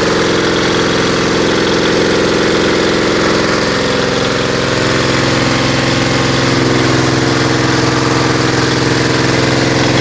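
Feed pellet mill running steadily under its drive engine, with a brief slight dip in level about four and a half seconds in before it settles again.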